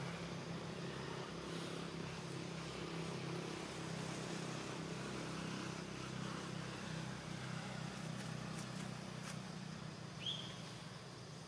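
Steady low engine hum with a faint outdoor haze over it. About ten seconds in there is one short, high, rising chirp.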